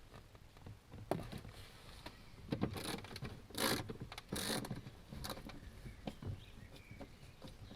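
Irregular clicks and knocks with a few short scraping rustles, from hands and tools working at a car door's plastic interior trim while the door card is being removed.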